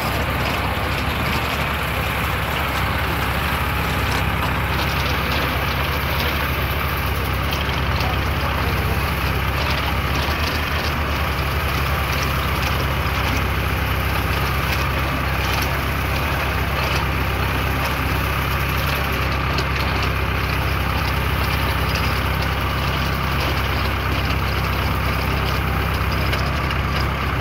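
Tractor engine running steadily, driving the hydraulic boom and comb head of a Viviani umbrella-and-comb olive harvester, with faint irregular crackling over the engine drone.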